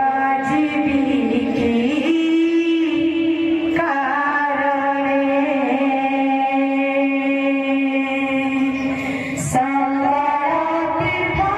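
Devotional kirtan music: women's voices singing long held notes with instrumental accompaniment.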